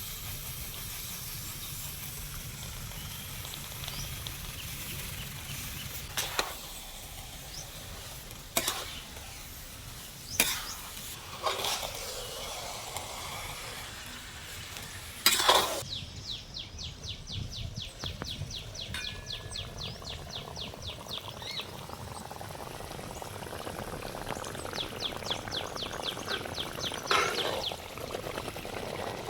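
Biscuit halwa frying in a pan with a steady sizzle while it is stirred, a utensil knocking sharply against the pan now and then. In two stretches, from about 16 s and again near the end, a rapid even scraping of the spatula against the pan.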